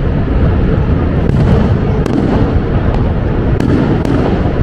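Fireworks bursting over a dense, steady low rumble: sharp cracks about two seconds in and twice more near the end.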